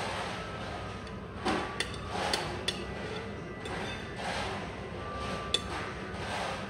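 A metal fork clinking and scraping against a ceramic plate while eating, over a steady hum of restaurant background noise. There is a cluster of sharp clinks in the first few seconds and a single louder one near the end.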